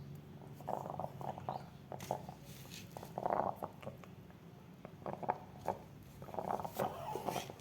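A chicken making several short, raspy, gurgling sounds, over a faint steady low hum.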